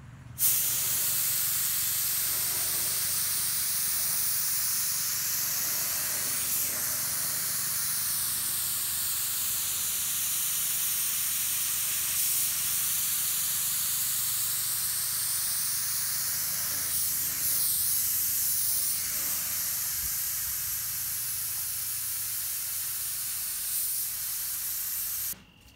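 Compressed-air paint spray gun with a siphon-feed cup, spraying paint in one long trigger pull: a steady, loud hiss that starts just after the beginning and cuts off suddenly near the end. Its tone sweeps slowly up and down as the gun passes back and forth over the panels.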